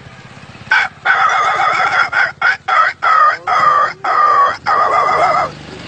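A man imitating a puppy with his voice: a run of high-pitched, drawn-out cries broken by short gaps, starting just under a second in.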